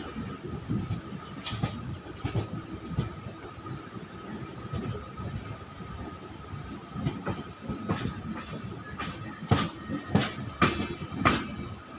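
Express train running, heard from inside a passenger coach: a steady rumble with a faint high whine and wheels clacking irregularly over the rails. A run of louder clacks comes near the end as the train crosses the yard tracks.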